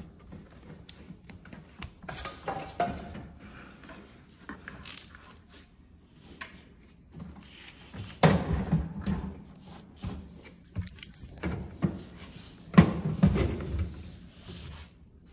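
Fisher & Paykel dishwasher drawer being pulled out on its slides and lifted off them: a run of rattles, knocks and scrapes, with two loud clunks, one about halfway through and one near the end.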